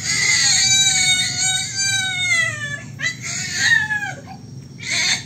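A baby crying: one long wail of nearly three seconds, then shorter cries that fall in pitch.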